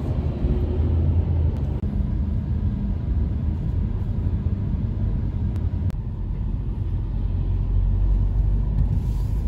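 Steady low rumble of a car heard from inside the cabin: road and engine noise of a moving car.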